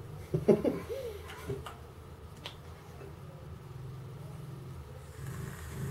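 A short low vocal grunt about half a second in, then a few faint clicks as a pod vape is handled. Near the end a soft airy hiss begins, the draw of air through the vape pod.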